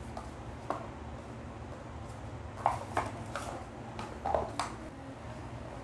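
Paper cups tapping and knocking on a tabletop as they are picked up, set down and stacked, about half a dozen light irregular taps over a steady low hum.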